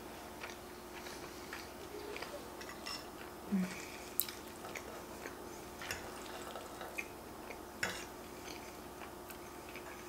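Mouth sounds of chewing a mouthful of spaghetti carbonara, with a short low mouth sound about three and a half seconds in. A few light clicks of a metal fork against a wooden spoon and plate follow as spaghetti is twirled.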